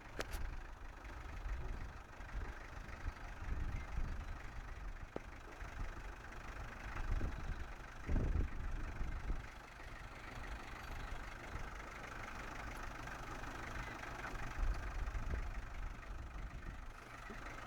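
Off-road 4x4's engine idling steadily with a low rumble, swelling briefly louder about eight seconds in.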